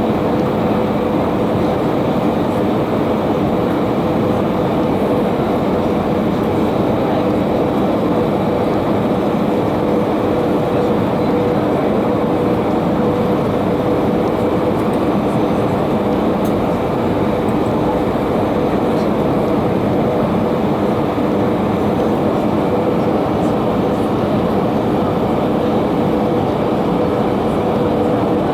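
Steady cabin noise inside an Airbus A320 in flight: the rush of air and the drone of the jet engines, with a steady humming tone over it.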